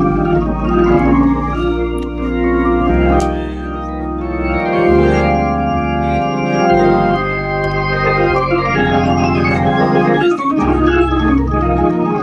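Hammond organ played live: held chords in a gospel style, with low bass notes changing underneath them.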